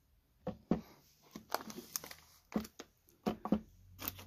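Plastic cereal bag crinkling as it is handled and slid across a table, with a series of short, sharp knocks and clicks, the last near the end as the button of a digital kitchen scale is pressed to switch it on.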